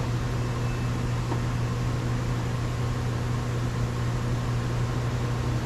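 Steady low mechanical hum with a hiss, like a fan or ventilation unit running, at an unchanging level; a faint tick about a second in.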